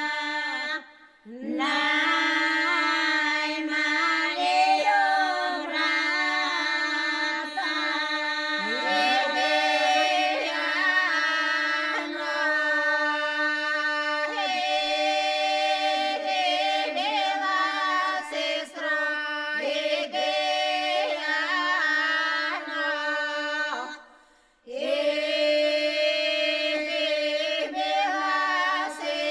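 A Bulgarian folk song sung a cappella by a group of women's voices, one part holding a steady drone while the other carries a bending melody above it. The singing stops briefly twice, about a second in and again near the end, between phrases.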